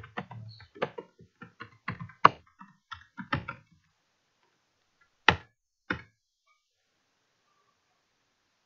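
Typing on a computer keyboard: a quick irregular run of keystrokes over the first few seconds, then two louder single keystrokes about half a second apart.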